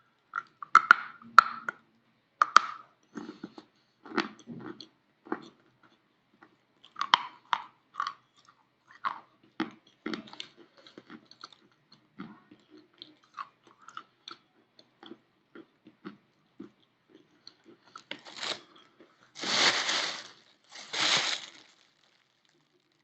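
A piece of chalk being bitten and chewed close up: sharp cracking bites with crumbly crunching in between. Near the end come three longer hissing noises, about a second each, louder than the bites.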